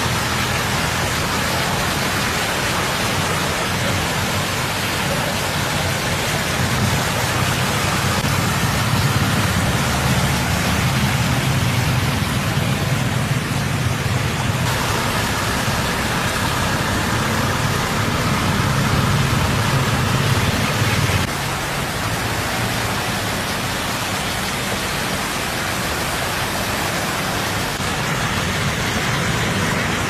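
Cars and motorbikes driving through a flooded street: a steady rush of tyre spray and moving water over a low rumble of engines. The mix shifts twice, about halfway and two-thirds of the way in.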